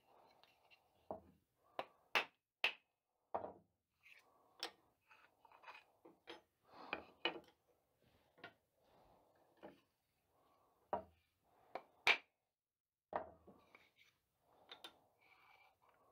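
Wooden moulding-plane bodies, wedges and steel cutting irons being handled and set down on a wooden workbench: scattered light knocks and clacks at irregular times, the sharpest about two seconds in and again near twelve seconds.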